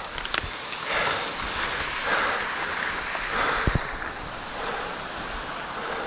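A small waterfall splashing into a creek pool: a steady rush of falling water, with a soft low thump a little past halfway.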